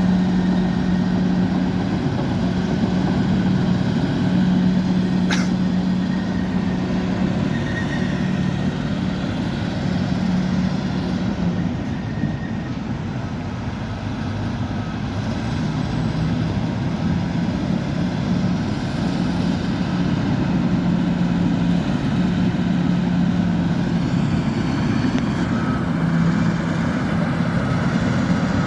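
Bulldozer's diesel engine running steadily, easing off slightly about halfway through, with one sharp click about five seconds in.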